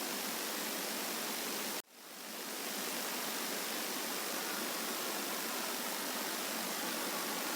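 Steady, even rushing noise in a high-pass-filtered night field recording, which the recordist takes for a large aircraft passing low overhead with no engine sound, not wind or a passing car. Faint layered tones show in the rush toward the end. About two seconds in it cuts out suddenly and fades back up over about a second.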